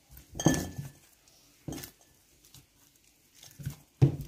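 A hand in a plastic glove kneading and pressing dough in a stainless steel bowl: a few irregular squishes and knocks against the metal bowl, the loudest about half a second in and a sharp knock near the end.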